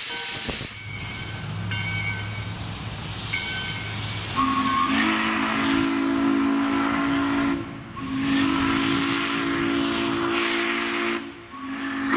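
Steam locomotive Valley Railroad No. 40, a 2-8-2 Mikado, sounding its Texas & Pacific three-chime steam whistle: two long blasts of a steady chord about three seconds each, with a third starting near the end. Before the whistle, a burst of steam hiss at the start.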